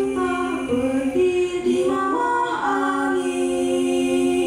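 Live music: a voice singing long held notes that step slowly from one pitch to the next, with little else under it.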